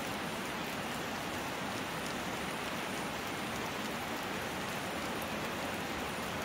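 Steady rain falling on flooded rice paddies and wet grass, an even hiss with no change.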